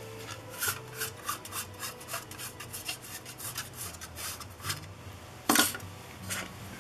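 A cloth rubbing a plastic petal lens hood in short quick strokes, about three or four a second. About five and a half seconds in comes a louder clack, the hood set down on the table.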